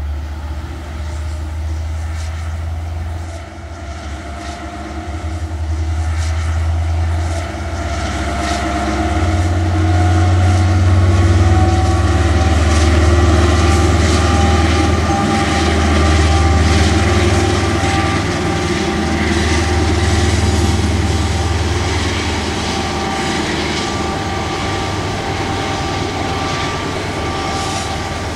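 Two KiwiRail DL class diesel-electric locomotives passing while hauling a train of loaded milk tanker wagons and container wagons. A deep engine drone runs under a steady high whine that rises slightly in pitch partway through, while the wagon wheels click over the rail joints.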